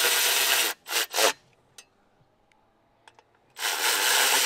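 Cordless ratchet spinning bolts into an aluminium mount panel. It gives a burst of a little over a second with two short blips after it, then a pause, then another burst of about a second near the end followed by one short blip.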